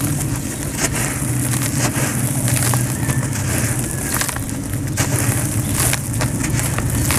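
Hands crumbling dry sand chunks, a gritty crunching with fine grit and powder trickling down, full of small crackles and clicks, over a steady low rumble.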